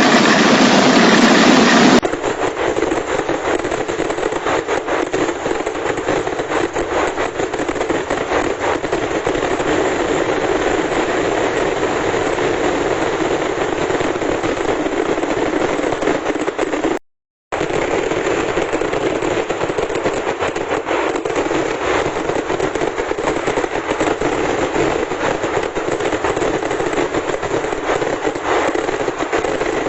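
Vedikettu fireworks: a dense, unbroken run of rapid firecracker cracks, like a long chain of crackers going off together. It stops for half a second about two-thirds of the way through, then carries on. The first two seconds hold a different, steadier pitched sound.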